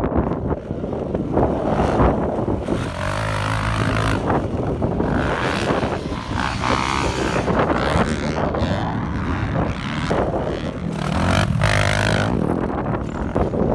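Motocross dirt bike engines revving up and down as riders work the throttle, swelling twice, about three seconds in and again near the end.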